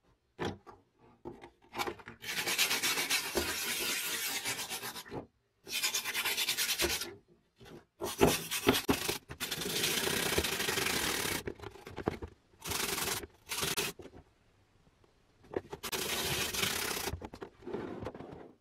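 A workpiece being abraded by hand, sanded or filed, in about six stretches of continuous strokes with short pauses between, the longest lasting about three seconds. A few small clicks come before the first stretch.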